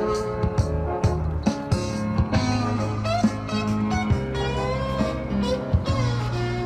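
Guitar music with a steady beat.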